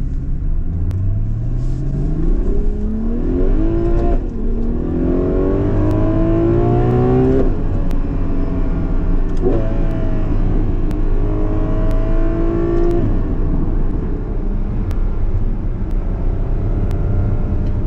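Ferrari 12Cilindri's naturally aspirated 6.5-litre V12 accelerating hard, its pitch climbing and then dropping sharply at upshifts about four and seven and a half seconds in, then running more steadily in a higher gear.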